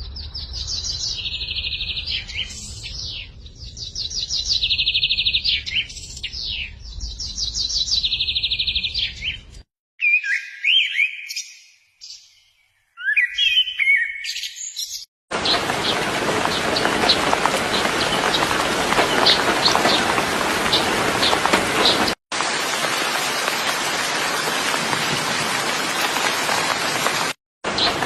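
Small songbirds singing in rapid, buzzy trills and chirps, with abrupt breaks. From about 15 s a loud, steady hiss like rain or rushing water takes over, with chirps faintly through it.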